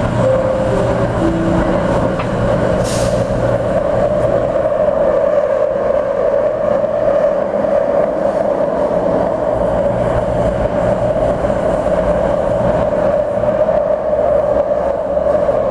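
Vienna U-Bahn metro train running, heard from inside the carriage: a steady rumble and hum, with a brief hiss about three seconds in.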